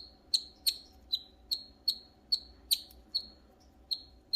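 Pet canary giving a rapid, even series of short, sharp chirps, about three a second.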